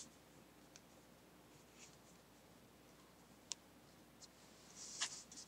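Mostly near silence, with faint rustles and light taps of fingers handling card stock and laying a clear plastic adhesive mask onto it. There is one sharp tick about three and a half seconds in, and a short rustle near the end.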